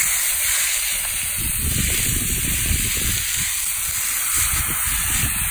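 Angus top sirloin steaks sizzling in hot olive oil in a cast iron skillet: a steady hiss that set in abruptly as the meat hit the pan.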